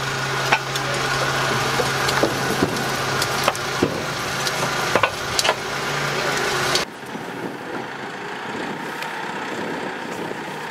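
Steel tracks and road wheels of a Flakpanzer being towed, giving irregular sharp clanks and creaks over the steady hum of the tow tractor's engine. About seven seconds in the sound cuts abruptly to a quieter, more distant engine.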